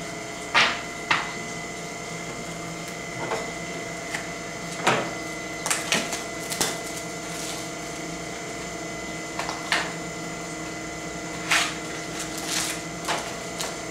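Trading cards being handled and sorted by hand: a scattering of short rustles and light card slaps over a steady background hum.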